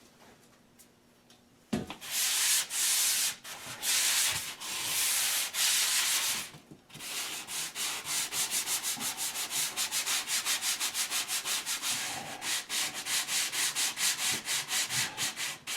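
Foam sanding block rubbed by hand over a dried plaster patch, feathering its edge smooth. It starts about two seconds in with a few long strokes, then turns into quick short back-and-forth strokes.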